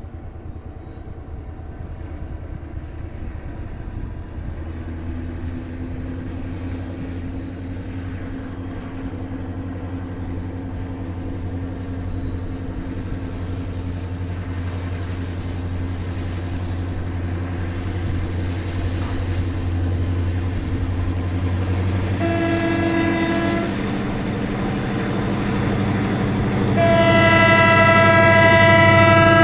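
Medway freight diesel locomotive approaching, its engine drone growing steadily louder. It then sounds its horn twice, a short blast and near the end a longer one, which serve as the crew's greeting.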